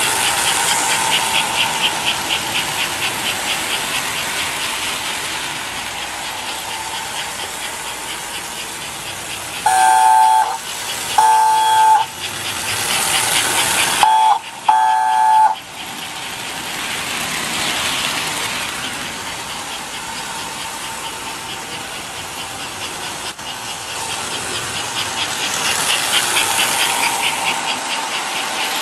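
A 1958 American Flyer S-gauge toy steam train running around its track with a steady, fast rhythmic chuffing clatter. About ten seconds in, the locomotive's whistle sounds four two-note blasts: long, long, short, long.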